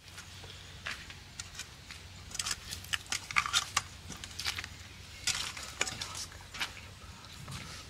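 Raw rohu fish pieces being handled: irregular light taps and clicks as the pieces are lifted out of a steel bowl and set down on a banana leaf, in clusters about two and a half seconds in and again past the five-second mark.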